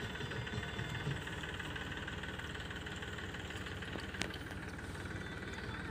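A steady engine hum running without change, with one sharp click about four seconds in.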